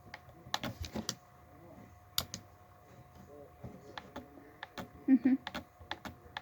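Close-up mouth sounds of someone eating a sub sandwich: irregular sharp, wet clicks and smacks of chewing, with a brief low voiced sound, like a murmur, about five seconds in.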